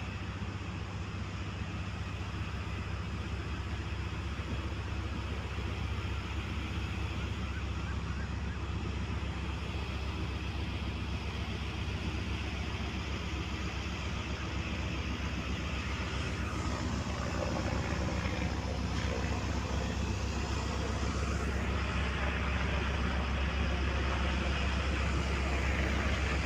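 GMCU-15 diesel-electric locomotive running light during shunting. It makes a deep, steady engine drone that grows louder as it approaches.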